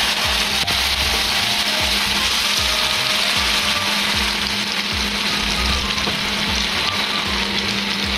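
Masala-marinated seer fish (vanjaram) steaks sizzling steadily as they shallow-fry in hot groundnut oil in a pan on a low flame, with more steaks being laid in.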